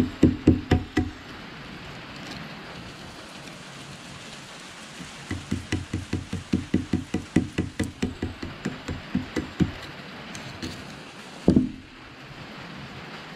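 A small hand pick scraping and chipping at the rust crust on a Civil War Burnside carbine, in quick runs of scratchy taps about five a second: briefly at first, then again for about four and a half seconds in the middle. A single louder knock comes near the end.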